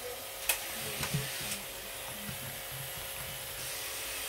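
Grooming brush rubbing through a corgi's thick coat, with three light clicks in the first second and a half, over a steady background hiss.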